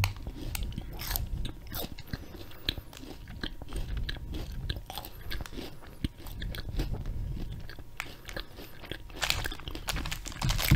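A mouthful of Rice Krispie treat being chewed right at the microphone, with many short crackles and mouth clicks throughout.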